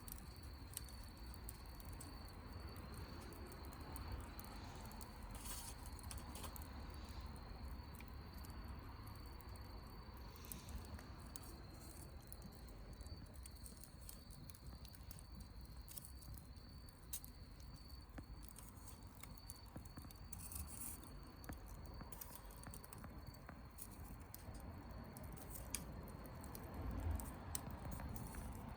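Wood campfire crackling softly, with scattered small pops and ticks, over a steady high-pitched hum.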